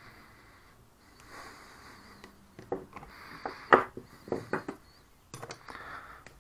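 A few sharp clinks and knocks of metal hand tools being picked up and set down on a wooden workbench, the loudest about halfway through. Heavy breathing close to the microphone.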